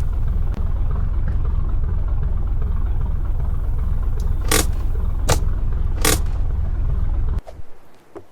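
Steady low rumble, like a running vehicle, with three sharp clicks about a second apart in its second half. The rumble cuts off suddenly near the end, leaving a few light taps.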